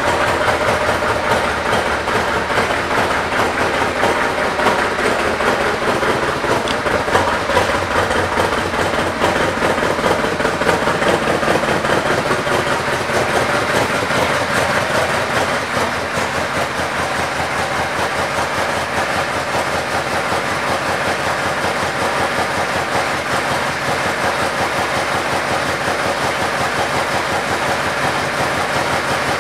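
2012 Yamaha Royal Star Venture S's 1294 cc V4 engine running steadily at idle, a little quieter about halfway through.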